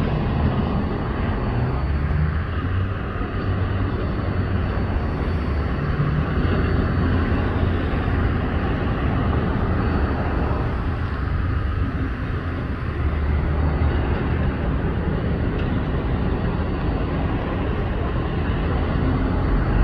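CSX mixed freight train of tank cars and boxcars rolling past, a steady rumble of wheels on rail.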